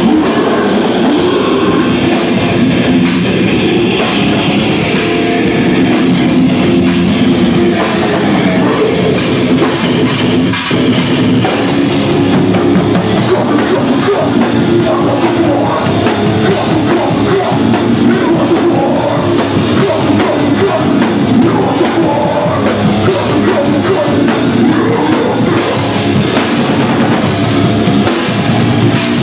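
Heavy hardcore metal band playing live and loud: distorted electric guitars over a drum kit.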